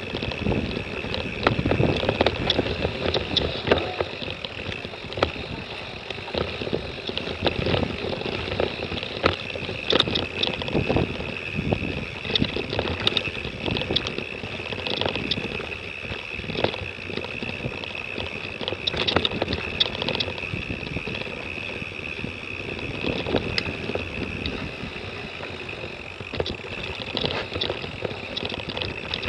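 Mountain bike rattling and knocking over a rough, rocky dirt trail, picked up by a Garmin VIRB action camera mounted on the rider or bike, with wind on the microphone. Many short knocks and clatters come from the bumps, over a continuous rushing noise and a steady high tone.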